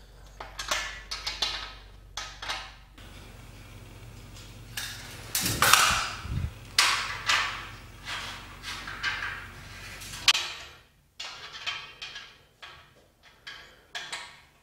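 Hex key working the bolts of an aluminium mounting-rail frame: irregular metallic clicks and scrapes as the bolts are tightened and the rails are handled, loudest about six seconds in.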